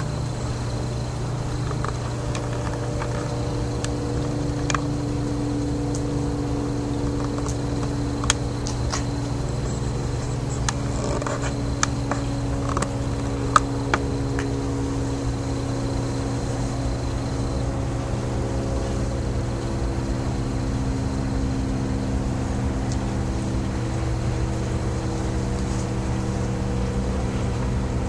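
Diesel locomotive engine running, a steady low drone whose tones drift slowly in pitch. A few sharp clicks come in around the middle.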